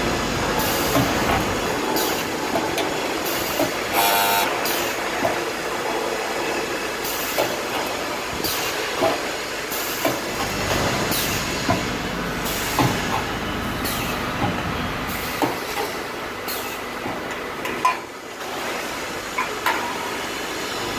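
DC spot welding machine making a series of welds: repeated sharp snaps at irregular intervals, roughly one a second, over a steady hiss and machine noise.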